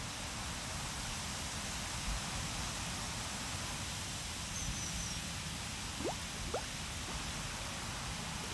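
Steady hiss of rain on a pond, with two drops plinking into the water, each a quick rising note, about six seconds in.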